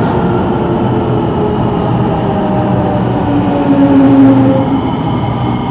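Singapore MRT train running through a tunnel, heard from inside the carriage: a loud, steady rumble of wheels on rail with a few faint whining tones, one louder for a second or so about halfway through.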